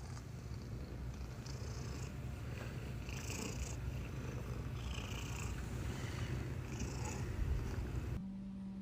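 Domestic cat purring, a continuous low pulsing rumble, until the sound cuts off about eight seconds in and a steady low hum follows.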